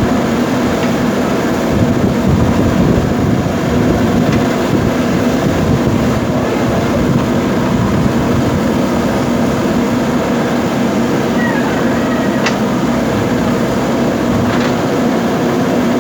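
JCB backhoe loader's diesel engine running steadily, with two faint clicks near the end.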